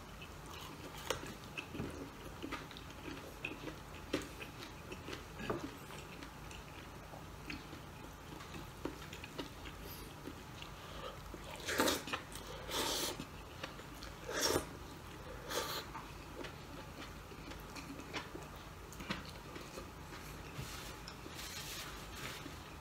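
A man eating bulalo beef and rice by hand: quiet chewing and small mouth clicks, with a few louder mouth noises a little past halfway as he brings a handful to his mouth. A paper napkin rustles near the end.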